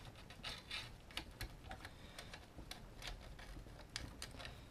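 Faint, irregular light clicks and taps of hands handling a plastic DJI Phantom drone and its undertray while routing a power cable.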